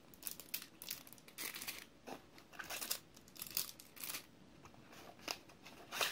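Plastic packaging bags crinkling and rustling in the hands, in short irregular bursts, as bagged nozzles are handled and unwrapped.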